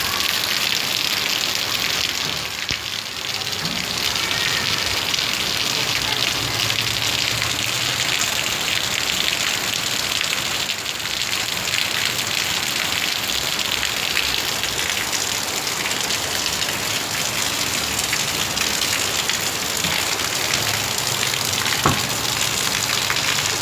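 Heavy rain pouring steadily, an even, dense hiss of drops hitting surfaces, with one sharp tap near the end.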